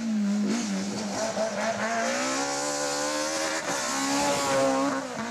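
BMW E30 M3 rally car's four-cylinder engine pulling hard past at close range, its pitch climbing, breaking briefly at a gear change about three and a half seconds in, then holding high.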